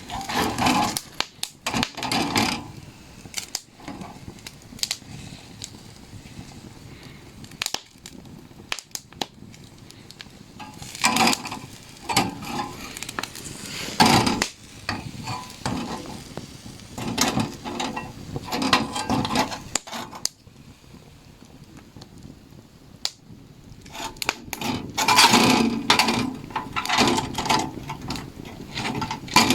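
Irregular clinks, scrapes and rustling of cookware and food being handled, with sharp knocks now and then. The busiest handling comes about halfway through and again near the end.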